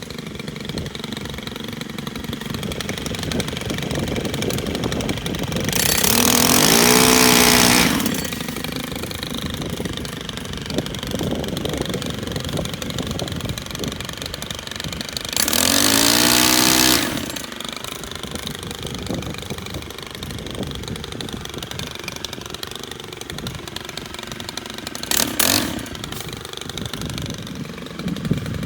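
STIHL KM 131R gas power head with a pole saw attachment idling steadily and revved up to high speed twice for about two seconds each as the saw cuts, with a short blip of throttle near the end.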